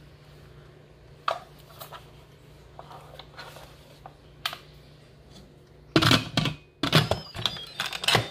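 Instant Pot pressure-cooker lid being set on the pot and twisted shut: a few light clicks, then a run of loud clattering knocks and scrapes about six seconds in as the lid seats and locks. A low steady hum runs underneath, and a few high electronic tones start near the end.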